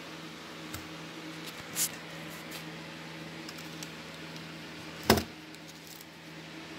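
Handling clicks and knocks from an Olympus Tough TG-5 compact camera being turned over in the hand: a small click just under a second in, a louder knock near two seconds in, and the loudest sharp click about five seconds in, over a steady low hum.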